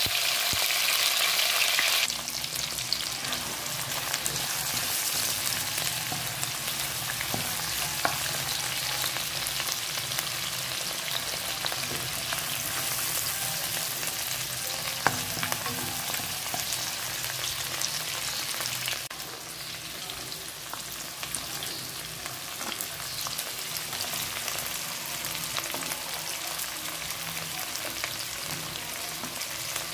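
Pork, garlic, onion and tomato sizzling in hot oil in a nonstick wok. The sizzle is loudest for the first two seconds as the freshly added ingredients hit the oil, then settles to a steady sizzle with light ticks of the spatula stirring. It gets a little quieter about two-thirds of the way through.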